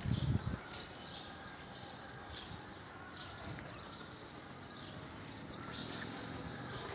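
Small birds chirping in short, scattered calls over a faint, steady outdoor background noise.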